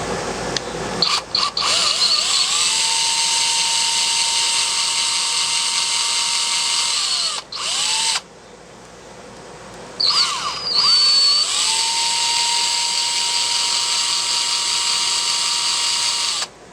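Power drill-driver with a T25 Torx bit turning screws for a motorcycle top-case mount: the motor spins up with a short rising whine and then holds a steady whine for several seconds, stops, and runs again in a second long burst.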